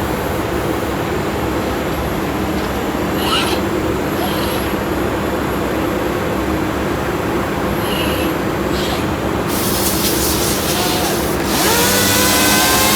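Robotic sanding machine running steadily as it sands walnut veneer, with a constant low hum. About nine and a half seconds in a hiss comes in, and near the end a motor speeds up with a rising whine.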